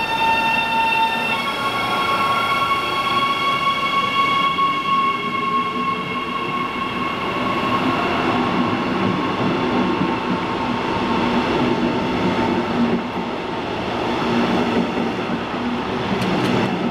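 DB class 147 electric locomotive pulling out with a double-deck train. Its traction converters whine in several steady high tones that step up in pitch about a second in and fade away. Then the coaches roll past with a steady rumble of wheels on rail, and there is a single knock near the end.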